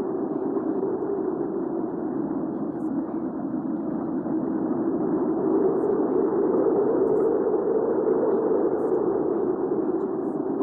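Hurricane wind ambience: a steady, low rushing wind that slowly swells and eases, with no sharp gusts or high whistling.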